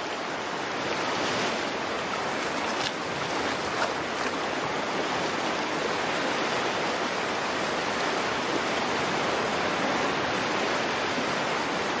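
Rushing stream water, a steady, even rush with no let-up.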